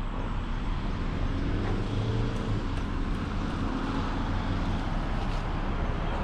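Mountain bike rolling along a gravel dirt track: steady tyre noise and wind rumble on the camera microphone. A faint engine note of a motor vehicle rises about two seconds in.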